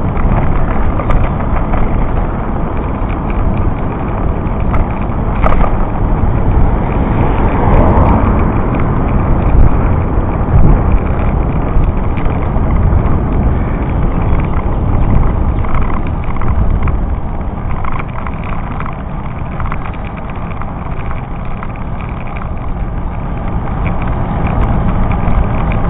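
Wind and road rumble buffeting the microphone of a bicycle-mounted camera while riding uphill: a loud, uneven, low rumbling noise with no clear tone.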